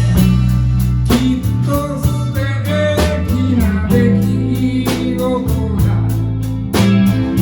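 Live band playing a slow blues: a lead guitar plays bending notes over a steady bass line, with drum hits about once a second.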